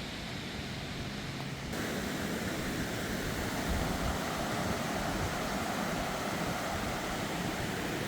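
Steady rushing noise, which steps up abruptly in level about two seconds in.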